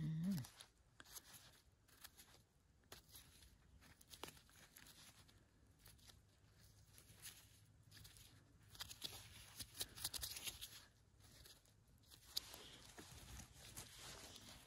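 Faint scraping and paring of a small knife blade on the stem of a fresh bolete mushroom, in irregular strokes that grow a little louder around ten seconds in.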